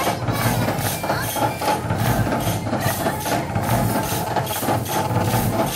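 Recorded dance music playing loudly, with a steady percussion beat.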